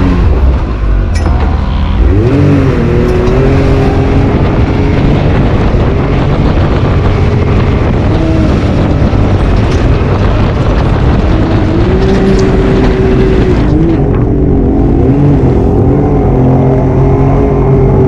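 Can-Am off-road vehicle engine running hard through mud and standing water, revving up and down repeatedly as the throttle is worked, with spray and splashing under the engine noise.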